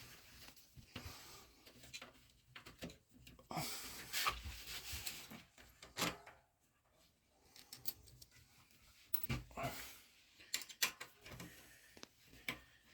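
Scattered clicks, knocks and scraping of hand tools working on small metal screws while the brake caliper is unbolted from an electric bike.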